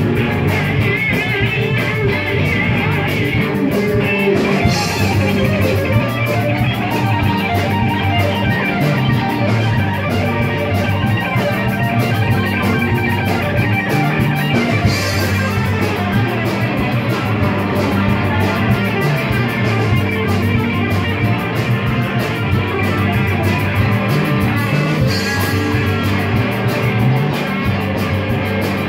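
Live rock band playing loud and steady: electric guitars over bass and a drum kit.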